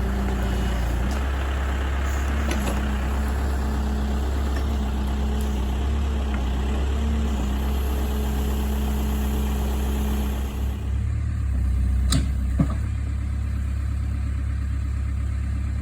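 Backhoe engine running steadily while digging, with a busier working noise over it that drops away about eleven seconds in. Two sharp knocks come soon after.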